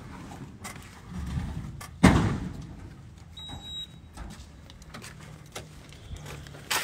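A single heavy bang about two seconds in, the loudest thing here, dying away within half a second; a brief high beep follows about a second and a half later, over faint low background with a few small knocks.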